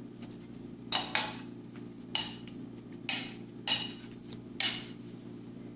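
A metal spoon clinking and scraping against bowls as diced fruit is spooned from a plastic bowl into a serving bowl: about seven sharp, irregularly spaced clinks.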